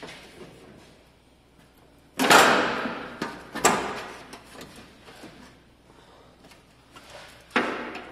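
Metal scraping and clunking as a tube flat fender is worked against the Jeep's body. There is a sudden scraping slide about two seconds in, a sharper knock a second later, scattered smaller clicks, and another scrape near the end.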